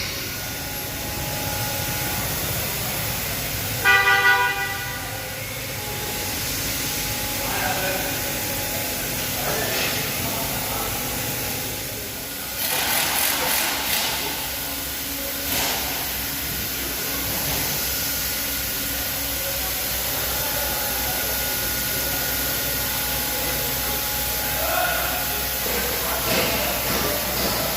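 Running BMW engine with a steady hiss, and a brief car-horn toot about four seconds in.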